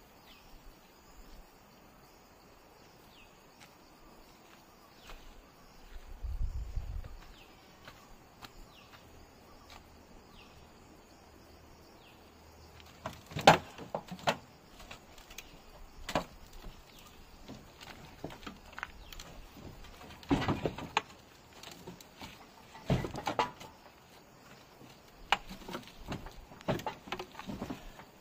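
Irregular clunks, thumps and scrapes as a stuck auto-rickshaw is lifted and shoved around by hand in mud, its engine off. One sharp knock about halfway through is the loudest. Before the handling starts, faint insects chirp in the background.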